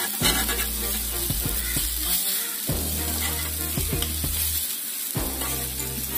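Seer fish steaks sizzling in oil on a hot flat iron griddle (tawa), with a metal spatula scraping the griddle now and then as grilled pieces are lifted off.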